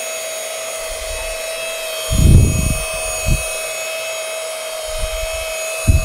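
Simplicity S65 cordless stick vacuum running with a steady high-pitched motor whine as its soft-roller hard-floor head sucks up scattered granules from a tabletop. A few dull thumps come through, the loudest about two seconds in.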